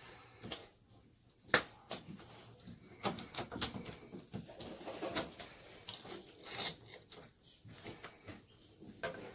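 Scattered clicks, clinks and knocks of a screwdriver and deadbolt hardware being worked while the deadbolt is unscrewed and taken out of the door; one sharp click about a second and a half in is the loudest.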